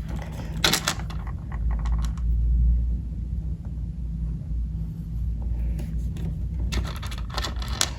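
Small toys being handled and set down, making clicks and rattles in two bursts, about a second in and again near the end, over a steady low hum.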